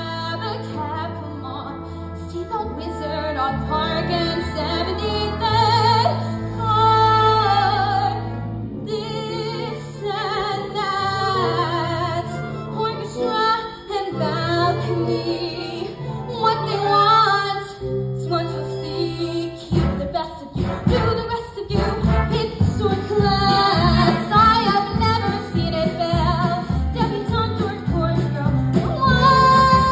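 A young woman sings a Broadway show tune solo, with a vibrato-laden voice, to live pit-band accompaniment that includes keyboard. About two-thirds of the way through, a stronger, steady beat comes in under the voice.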